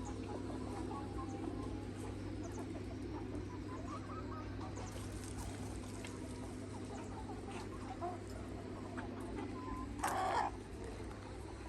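Free-range chickens, roosters and hens, clucking softly and sporadically over a steady low hum, with one short, louder burst about ten seconds in.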